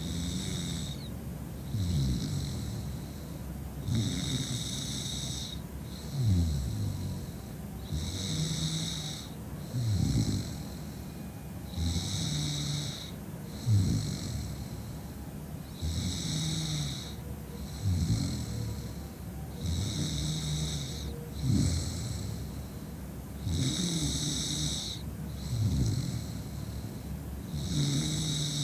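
A woman snoring in deep, drunken sleep. Each breath comes about every four seconds as a pair of snoring pulses, one slightly louder than the other, in an even, regular rhythm.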